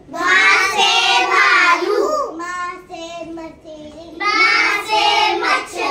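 A young child's voice imitating a goat's bleat: drawn-out, high-pitched wavering 'meh' calls, two long ones with a weaker call between them.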